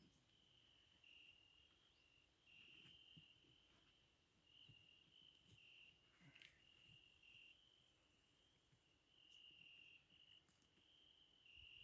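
Faint, high-pitched chirping of crickets coming in short spells over near silence, with a few faint clicks.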